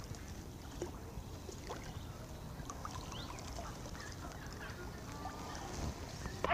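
Light water splashing and dripping as a small catfish is brought into a landing net and the net is lifted out of the water, with scattered small ticks and faint bird chirps.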